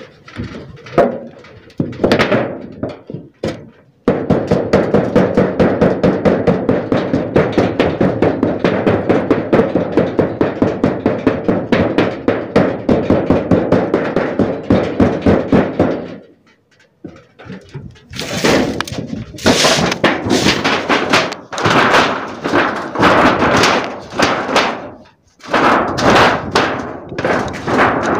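Rapid, even knocking on galvanised sheet metal, about four blows a second for some twelve seconds, with a ringing note. After a short pause come louder, irregular knocks and scrapes.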